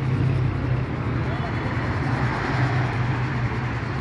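Street noise: a steady low hum of traffic with indistinct voices in the background.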